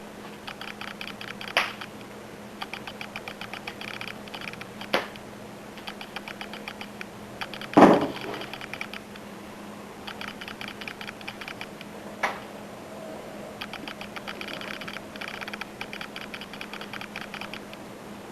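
Bursts of rapid light clicking, each about a second long, broken by a few single sharp knocks, the loudest about eight seconds in, over a steady low hum.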